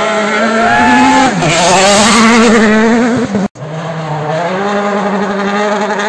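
Hyundai i20 Coupe WRC rally car's turbocharged four-cylinder engine revving hard as it slides through a gravel corner, with a brief dip in pitch about a second and a half in. After a sudden cut partway through, a second rally car's engine is heard running more steadily from further off.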